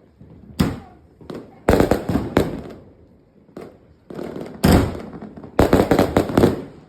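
Consumer fireworks from a finale board going off: a string of loud bangs with echoing tails, some single and some in quick clusters, the densest volley near the end.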